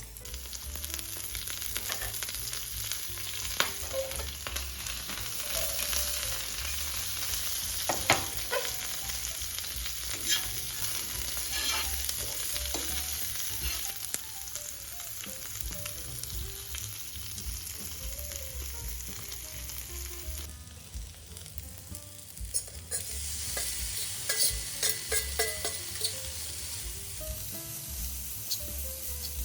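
Food sizzling in a pan while it is stirred, with scattered clicks and scrapes of the utensil against the pan.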